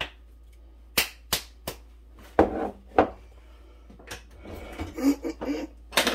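Palm slapping the bottom of an upside-down salsa jar to shake salsa into a bowl of meatloaf mix: about six sharp smacks over three seconds, the last two the heaviest. Near the end, a kitchen drawer of utensils is pulled open with a clatter.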